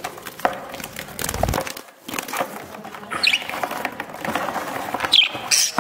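Budgerigars scrabbling and fluttering as they are handled in a plastic tub: many claw scrapes and clicks on the plastic, rustling wings, and a few short chirps about three and five seconds in.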